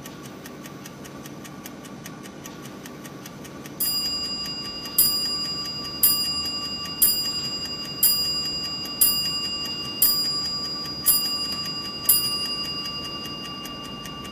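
Man-nen dokei mechanical clock ticking quickly and steadily. About four seconds in, its bell strikes nine times, roughly once a second, each stroke ringing on and fading before the next.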